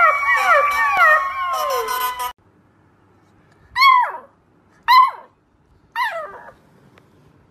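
A young puppy howls among several overlapping wavering tones, which stop abruptly about two seconds in. A beagle puppy then gives three short yips about a second apart, each dropping in pitch.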